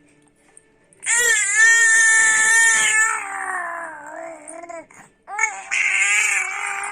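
A five-month-old baby vocalising in long, high-pitched, wavering squeal-like sounds: one of about four seconds starting a second in, then another after a short break near the end.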